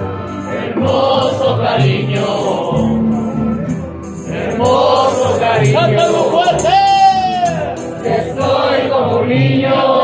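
Live street string band, with guitars and a stepping bass line, accompanying many voices singing together. About seven seconds in, one voice rises to a high note, holds it, then falls.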